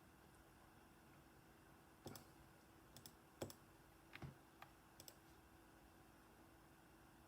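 Near silence broken by a handful of faint, sharp clicks and taps between about two and five seconds in, over a steady faint hum.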